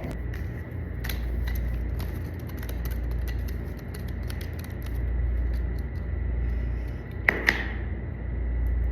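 Packaging being handled: scattered small clicks and taps over a low rumble, with two sharper clicks a little past seven seconds in. A faint steady high tone runs underneath.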